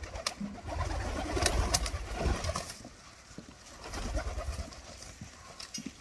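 White doves cooing, with a few sharp taps.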